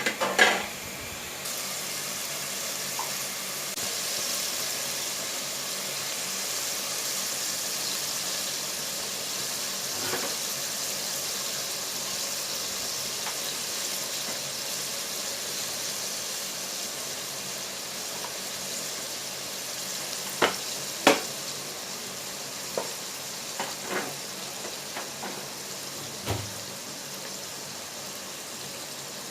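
Chopped onions, chicken and ginger-garlic frying in oil over high heat, a steady sizzle. A sharp knock right at the start and a few sharp clicks about twenty seconds in.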